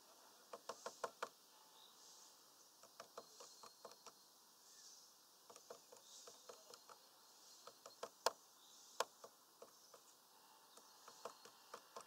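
Great tit pecking with its bill on a wooden twig perch at a feeder: short runs of sharp knocks a few taps at a time, with two louder single knocks past the middle.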